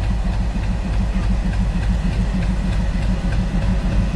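Diesel locomotive engine running with a steady, low pulsing rumble as the locomotive creeps very slowly toward the level crossing.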